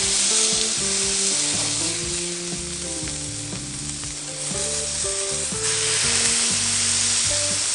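Ground-beef patties sizzling loudly on a hot Camp Chef flat-top griddle as they are smashed flat with a spatula and a burger press; the sizzle swells at the start and again about six seconds in. Background music plays underneath.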